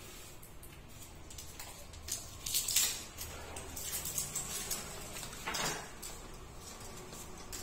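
Plastic spice packet crinkling as coriander powder is shaken out of it over a large aluminium cooking pot, with a few short rustles and a light knock or clatter near the middle and again about two-thirds of the way through.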